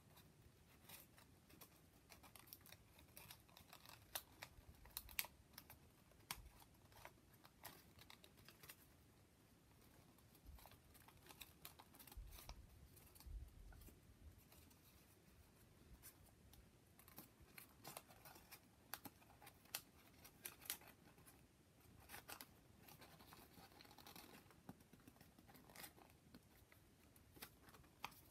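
Faint rustling and crinkling of folded origami paper units being handled and slotted together into a modular polyhedron, with many small scattered clicks and ticks.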